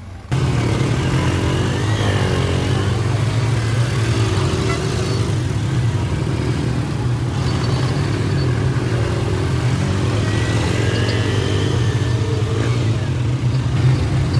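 Road traffic in a slow jam: car and motorcycle-type engines running and revving over a steady low engine hum. It starts abruptly just after the opening.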